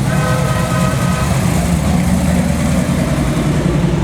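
Engine of a slow-moving classic car or truck running with a steady low rumble. A brief higher tone sounds over it in the first second or so.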